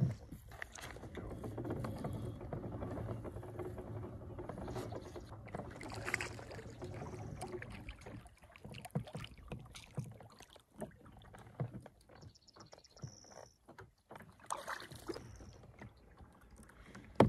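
Handling noise aboard a fishing kayak while a smallmouth bass is fought and landed: a steady rustling noise for about the first half, then scattered knocks and clicks against the hull and gear.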